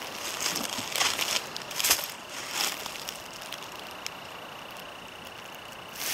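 Footsteps crunching through dry leaf litter and twigs on a forest floor: about five steps over the first three seconds, then a lull.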